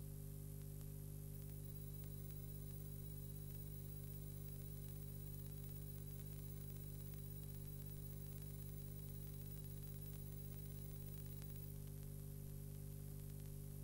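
Faint steady electrical hum with its overtones under an even hiss. A thin high whine comes in about two seconds in and drops out about two seconds before the end.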